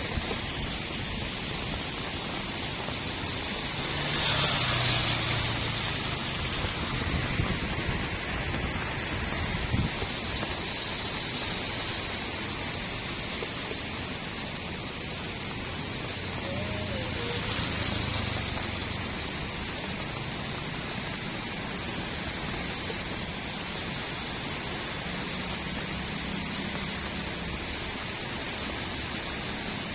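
Steady rain falling on a street, a continuous hiss with gurgling runoff water. The rush swells louder for a couple of seconds about four seconds in.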